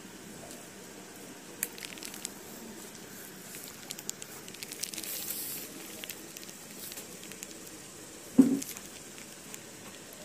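Light clicks and paper crinkling as a kitten paws at a pen and notebook pages, with one louder thump about eight seconds in.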